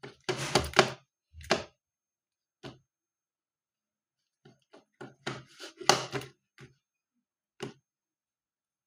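Handling noises while making slime: short knocks and clatter of things set down and moved on a table, in scattered bursts, busiest about five to six seconds in.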